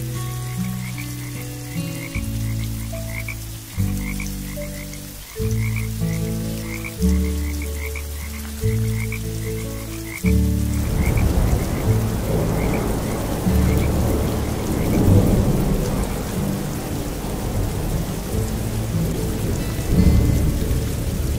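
Frogs croaking: small high chirps about twice a second over deep, drawn-out croaks that start suddenly and fade. About halfway through, steady rain sets in with low rumbling thunder.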